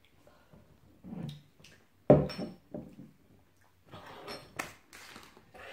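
A glass hot-sauce bottle set down on a wooden coffee table with one sharp knock about two seconds in, the loudest sound here. Around it are a short low grunt and quieter handling noises and clicks.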